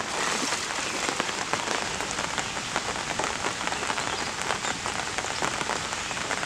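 Steady monsoon rain falling, a dense even hiss with many separate drop hits ticking through it.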